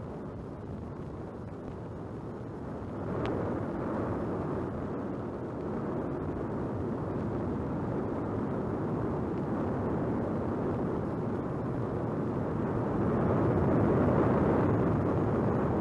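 Steady rushing rumble of an erupting Hawaiian lava fountain and lava flow, with no distinct pitch, growing louder about three seconds in and swelling again near the end.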